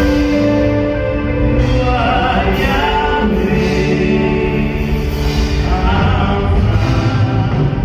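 A woman singing a gospel worship song in long, held notes over instrumental accompaniment.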